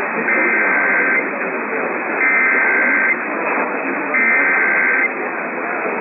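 Emergency Alert System SAME header: three bursts of warbling digital data tones, each about a second long with about a second's gap, received over AM radio through heavy static hiss. This is the coded start of a Required Monthly Test, just before the two-tone attention signal.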